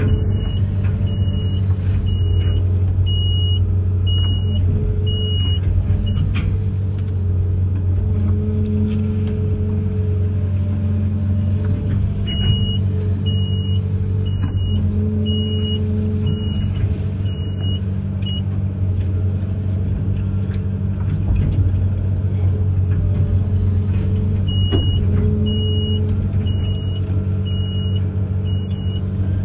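Amphibious excavator's diesel engine running steadily under load, with its warning alarm beeping in three runs of about eight beeps each.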